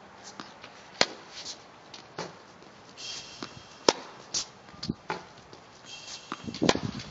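Tennis racket striking the ball: three sharp hits about three seconds apart, with lighter taps of ball bounces and footsteps between them and a couple of brief high squeaks of shoes on the hard court.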